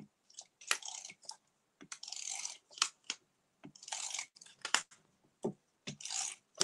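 Double-sided tape runner drawn along a piece of card: three short crackling strokes about two seconds apart, with small clicks in between.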